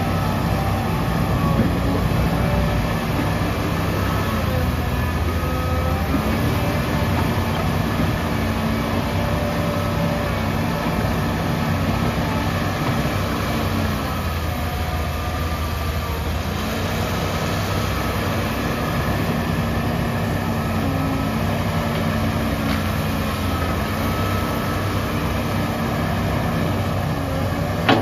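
Komatsu PC150-5 hydraulic excavator working under load: a steady diesel engine note, with hydraulic whine that rises and falls in pitch as the boom, arm and bucket dig and swing.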